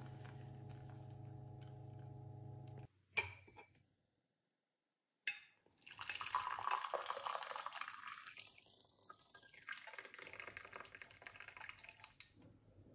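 Hot lemon-ginger drink poured from a saucepan through a fine metal mesh strainer into a glass, the liquid splashing and trickling from about six seconds in and tapering off near the end. Before the pour, a steady low electrical hum stops suddenly, followed by a click and a short dead silence.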